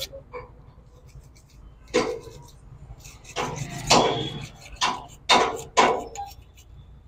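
A cloth rag wiped in several quick strokes over the open gearbox housing of a John Deere 5310 tractor, a rubbing swish with each stroke, the loudest near the middle.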